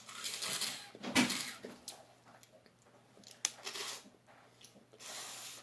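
Close-up sucking and slurping of meat and juice out of cooked lobster legs: several hissing sucks, with a sharp click about three and a half seconds in.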